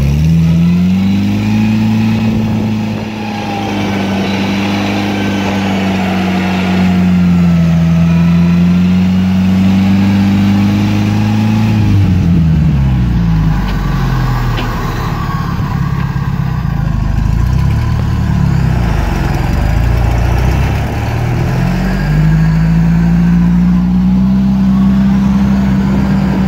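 Off-road vehicle engine revving hard under load while a stuck UAZ is pulled out of a flooded rut on a tow line. The revs climb and hold high for about ten seconds, drop and waver, then climb and hold again near the end.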